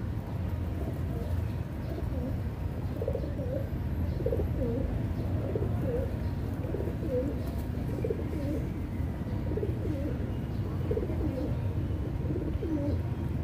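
Feral rock pigeons cooing: many short, low coos in quick succession, overlapping one another, over a steady low rumble.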